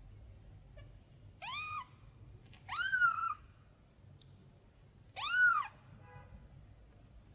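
A very young orange kitten, eyes still closed, mewing three times, each cry rising and then falling in pitch; the first is quieter and the last two are louder. It is crying out for its mother cat.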